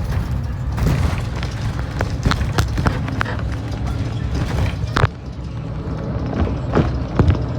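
City street traffic: a steady low rumble of heavy vehicles with repeated clanks and knocks, and a loud bang about five seconds in.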